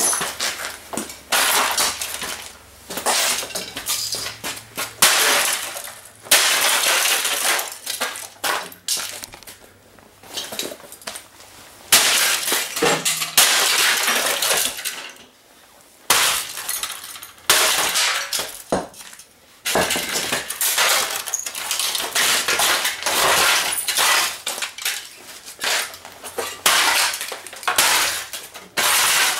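An Aiwa CD/cassette stereo being smashed apart by repeated blows, its case and parts cracking, breaking and clattering in bursts with short pauses between.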